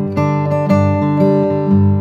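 Background music: an acoustic guitar strummed in a steady rhythm, about two strums a second.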